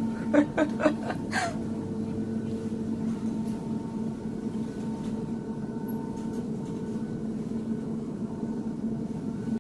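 Steady machine hum with a few held pitches inside a Ferris wheel gondola cabin, with several short vocal sounds in the first second and a half.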